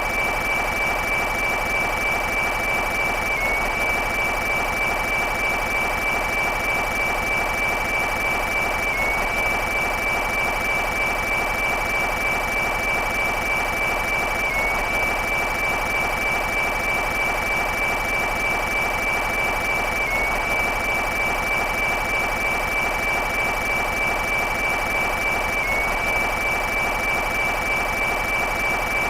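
Synthesized laser-gun sound effect: a continuous buzzing beam with a steady high whine over it, not separate shots. The loop restarts about every five and a half seconds, marked by a brief dip in the whine's pitch.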